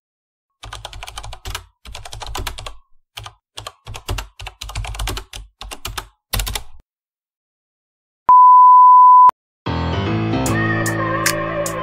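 Computer keyboard typing sound effect: rapid key clicks in uneven bursts for about six seconds. After a short pause comes a steady beep lasting about a second, and then music with plucked guitar starts near the end.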